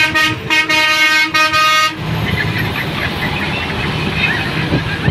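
A vehicle horn honks in several short blasts over about two seconds. Then comes the steady rumble of a vehicle driving along the road.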